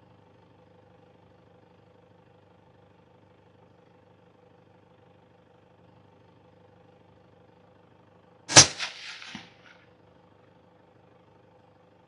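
A single suppressed .223 rifle shot (Sako 85 with a sound moderator) about two-thirds of the way through, a sharp crack with a short rolling tail, followed under a second later by a faint thud of the bullet striking a fox about 186 m away. Beneath it a faint steady hum.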